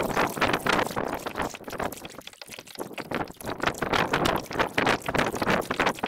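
Kayak paddle strokes: the double-bladed paddle dipping and pulling through the water, with splashing and water running and dripping off the blades.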